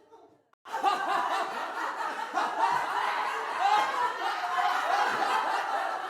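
A group of people laughing, many voices overlapping in chuckles and snickers. It starts abruptly under a second in, after a brief near-silent gap.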